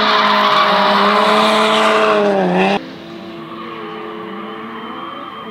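Race car sliding sideways through a corner at high revs, its tyres screeching over the engine. The engine pitch dips and the sound cuts off suddenly about three seconds in, leaving a quieter engine running further off.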